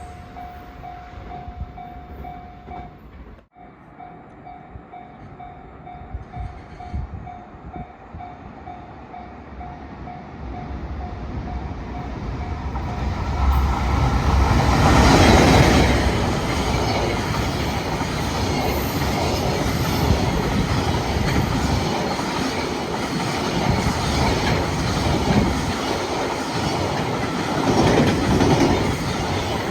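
A level-crossing warning bell rings with a steady pulsing tone. About twelve seconds in, an EF510 electric locomotive hauling a freight train arrives, growing loud and drowning out the bell. The freight wagons then clatter steadily past over the track.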